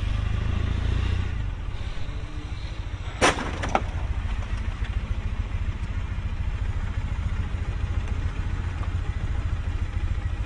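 Motor-vehicle traffic with a loud, steady low rumble, broken about three seconds in by a sharp crash, with a second, weaker knock half a second later: a collision.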